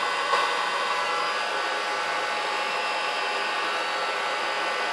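Electric heat gun running steadily, a constant blowing whir with a faint fixed whine, used to melt and smooth beeswax on a leather parade shoe.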